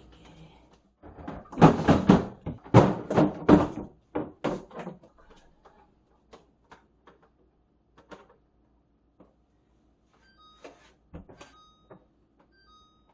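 Knocking and clattering of containers being set into refrigerator compartments and shelves being moved: a run of loud clatter in the first few seconds, then scattered lighter taps.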